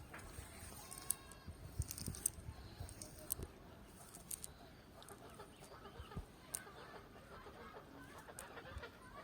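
Chickens clucking, one short call about a second in, with scattered small clicks.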